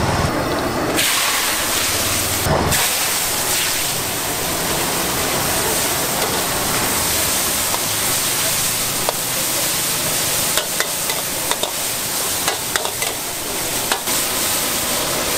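Wok of hot oil sizzling hard with a steady hiss that sets in about a second in, as greens are stir-fried over a high gas flame and the wok flares. In the second half a metal spatula ticks and scrapes against the wok several times.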